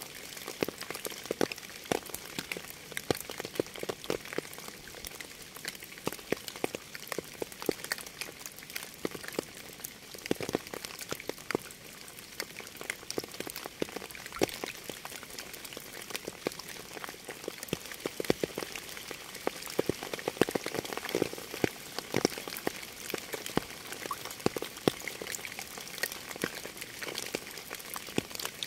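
Steady rain, its many separate drops heard as irregular sharp ticks over a continuous hiss.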